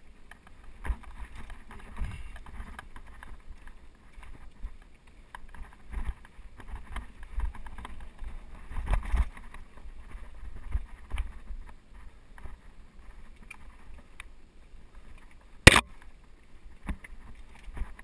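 Mountain bike riding over a rocky dirt singletrack: tyres rolling over dirt and rock with irregular rattles and knocks from the bike, over a low rumble. One sharp, loud knock stands out near the end.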